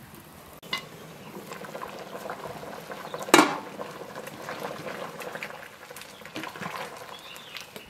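Large pot of curry boiling and bubbling while a metal ladle stirs it, with small scrapes and clicks and one loud sharp knock of the ladle against the pot about three and a half seconds in.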